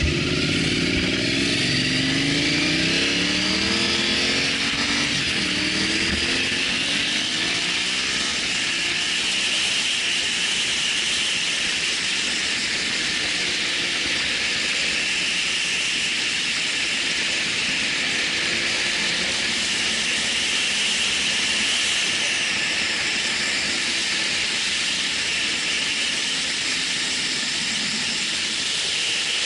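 Motorcycle engine pulling away from a stop and rising in pitch through the first gears over the first several seconds, then a steady rush of wind over the microphone as the bike rides on, with the engine lower beneath it.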